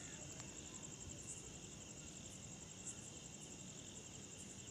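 Faint, steady high-pitched trilling of insects.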